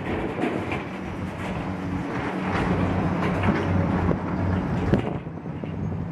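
Steady low rumble of heavy road traffic, with the hum of a truck's diesel engine and wind on the microphone. A few small knocks come through, and the hiss thins out near the end.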